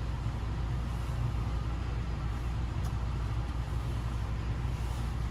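Steady low rumble, like a motor or fan running, with one faint click about three seconds in.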